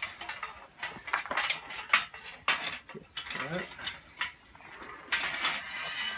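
Galvanized steel press stand of a hand-operated ratchet briquette press being handled and lowered onto stone paving: irregular metal clanks, clicks and rattles from the frame, handle and loose parts, busier about five seconds in.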